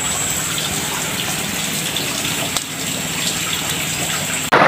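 Water rushing steadily down a small stream or ditch.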